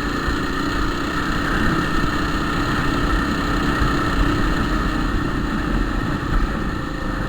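Motorcycle engine running steadily while being ridden, over a heavy low rumble.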